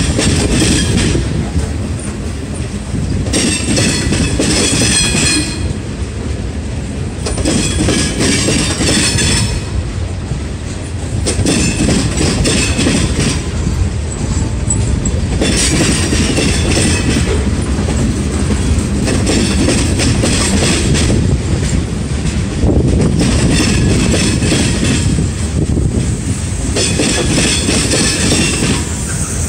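Long freight train of open-top hopper cars rolling past close by: a steady, loud rumble of wheels on rail, with a high-pitched metallic squeal from the passing cars coming and going every few seconds.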